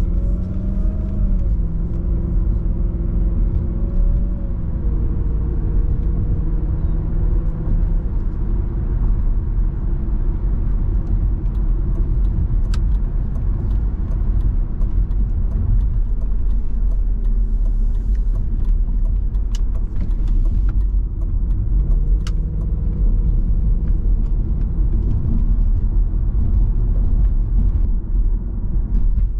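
Audi S4 B7's 4.2-litre V8 heard from inside the cabin while driving, over steady road and tyre rumble. The engine note rises briefly at the start, holds steady, then climbs again about 22 seconds in, with a few faint sharp ticks along the way.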